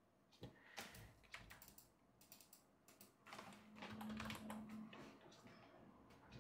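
Faint, irregular clicking of keys typed on a computer keyboard, with a brief low hum under a denser run of keystrokes in the middle.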